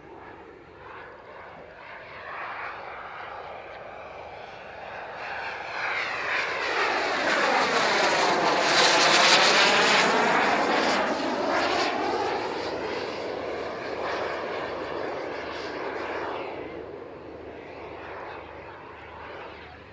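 Jet turbine of a radio-controlled model F-104 Starfighter flying past: its rushing noise grows to its loudest about halfway through and then fades away. A thin high turbine whine slides down in pitch as the jet passes.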